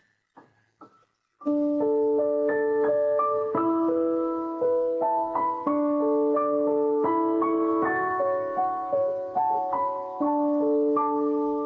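Background piano music with slowly changing held notes, starting about a second and a half in after a few faint clicks.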